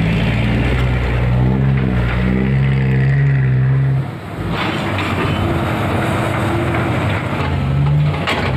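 Diesel dump truck engine running as the truck drives past, its pitch rising and falling with the throttle. The sound dips briefly about four seconds in, then the engine runs on with a rougher note and a few clicks near the end.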